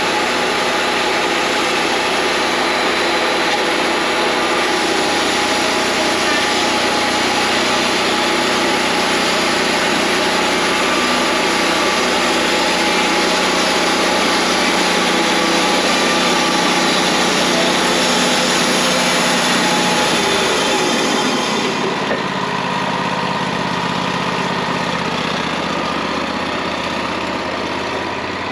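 Wood-Mizer LT40 bandsaw sawmill running, its band blade cutting through pine with a steady, loud mechanical whine and rasp. About three-quarters of the way through, the sound thins and lightens while the mill keeps running.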